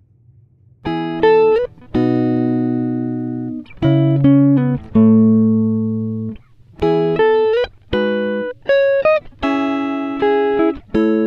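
Background music: a slow melody of plucked-string notes and chords, each struck sharply and left to ring and fade.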